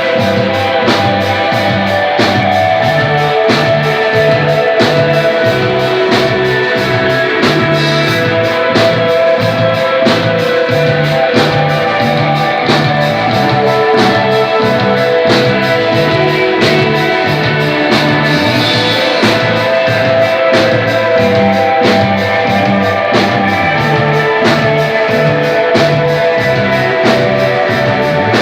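Desert rock band playing live: electric guitar over bass and drum kit, with a steady, even drum beat.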